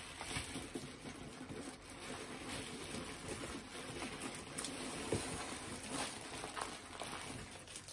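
Faint rustling and handling of plastic bags of jewelry, with a few light ticks and taps scattered through.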